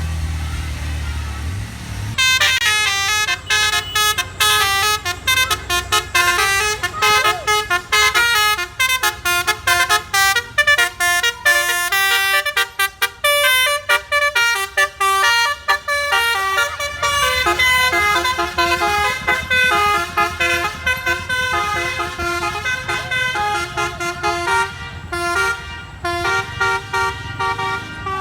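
Bus 'telolet basuri' musical air horn playing a fast melody of many short, stepping notes, starting about two seconds in over a bus engine running.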